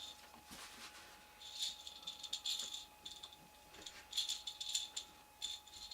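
Light rattling in several short spells, from dolls and toys being picked up and shifted.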